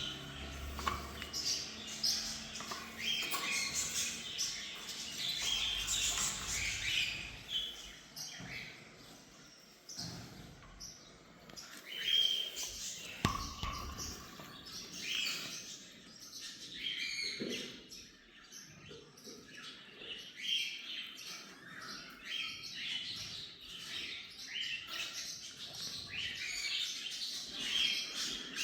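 Small parrots, budgerigars and lovebirds, chirping and chattering together in a continuous stream of quick, high chirps with a few louder calls.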